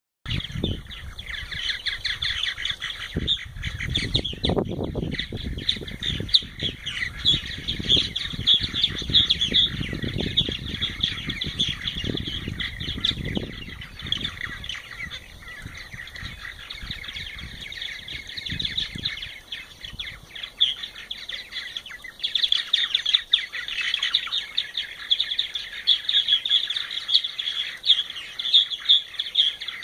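A colony of purple martins chattering and singing continuously, a dense stream of gurgling chirps that thins out midway and picks up again near the end. A low rumble runs beneath it for roughly the first half.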